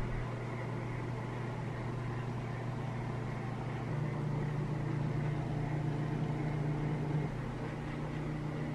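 A steady low mechanical hum, like a running motor or appliance, slightly louder between about four and seven seconds in.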